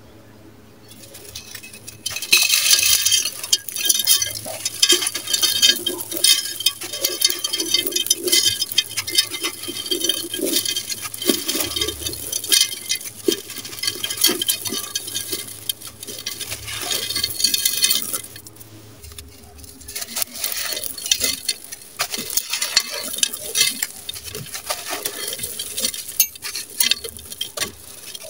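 Dry, gritty sand-cement block crushed and crumbled by hand over a clay pot: dense crunching and crackling with grains pattering down. It starts about two seconds in and eases off briefly about two-thirds of the way through before the crushing resumes.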